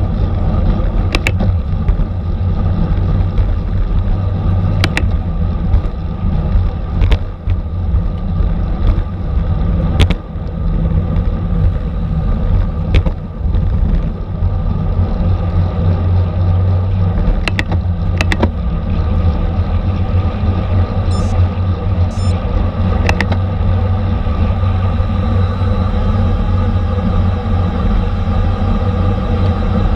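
Steady wind and road rumble of a road bike ridden at race speed, with a few sharp clicks scattered through it.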